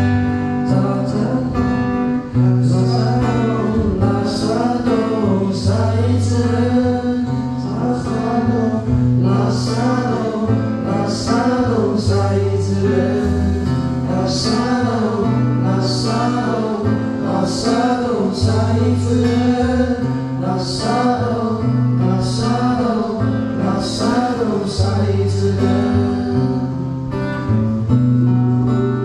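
Live band music: acoustic guitar with a steady stepping bass line and a melody line on top, and bright accents about every second and a half.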